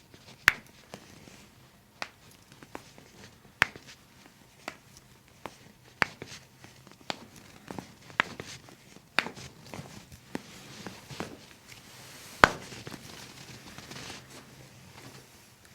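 Irregular sharp clicks and taps from people moving on and around a chiropractic treatment table, roughly one every second or so, the loudest about half a second in and near the end, with faint rustling in between.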